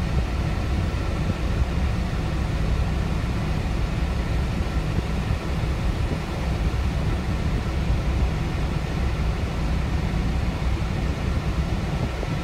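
Steady low rumble of a PACCAR MX13 inline-six diesel idling in a 2015 Kenworth T680, heard from inside the cab.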